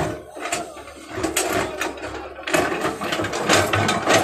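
L&T-Komatsu hydraulic excavator digging into a heap of soil: its engine runs under a dense, irregular run of scraping, crunching and knocking from the bucket, louder from about halfway through.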